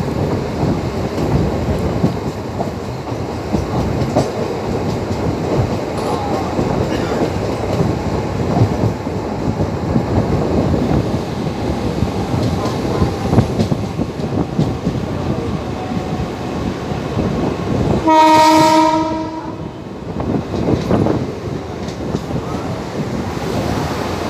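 A train running along the track with a steady rumble and clatter of wheels on rail. About eighteen seconds in, its horn sounds once for about a second and a half.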